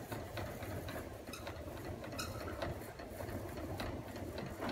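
Thule Omnistor awning being wound out with its hand crank: the crank gear turning with soft, irregular clicks over a low steady hum.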